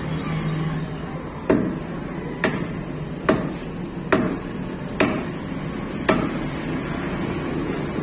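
A butcher's cleaver chopping beef on a wooden log chopping block: six strikes, about one a second, which stop about six seconds in.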